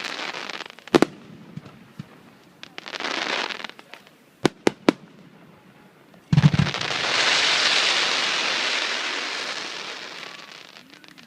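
Aerial fireworks shells bursting: a few sharp bangs with short crackling hisses, then a heavy boom about six seconds in followed by a long crackling hiss that slowly fades away.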